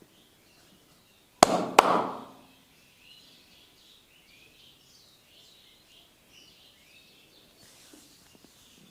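Two sharp smacks of a percussive massage stroke, about a third of a second apart, each with a short ringing tail. Faint bird chirping in the background.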